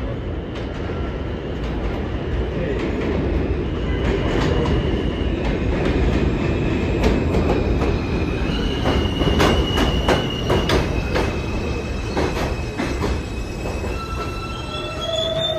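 New York City subway M train pulling into an elevated station: a steady rumble builds as the train comes in, high steady wheel squeal runs through the middle, and a quick run of clacks sounds as the cars roll past. Near the end, higher whining tones come in as the train slows.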